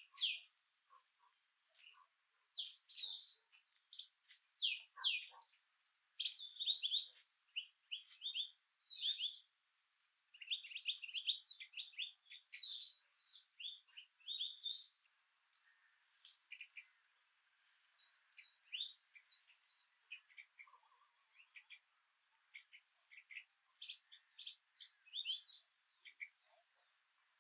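Small birds chirping and twittering in many quick, short, high calls, busiest in the first half and sparser after about fifteen seconds. A faint steady hiss sits under the later calls.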